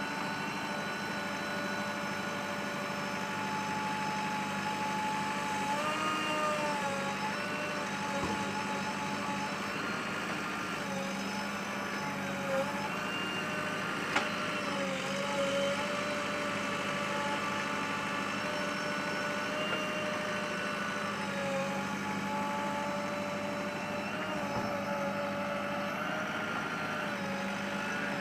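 JCB 3DX backhoe loader's diesel engine running steadily under work, its pitch shifting slightly up and down at times, with a couple of brief knocks about halfway through.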